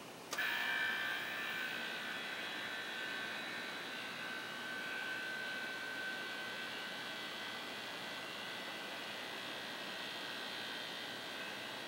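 Electrical power switching on with a sharp click about a third of a second in. A steady, high-pitched electrical whine of several tones starts at once and holds.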